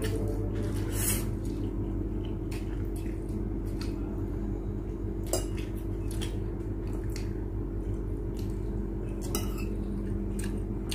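Eating sounds: metal forks clinking and scraping on ceramic plates and noodles being slurped, in scattered short clicks, over a steady low hum.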